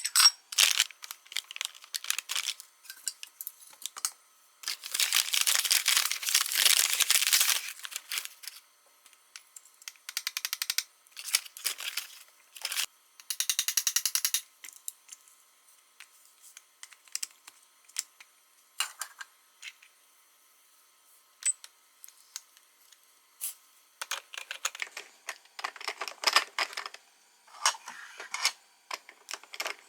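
Close handling sounds of objects: scattered clicks and taps, a few seconds of rustling about five seconds in, and a quick run of rapid ticks about halfway through.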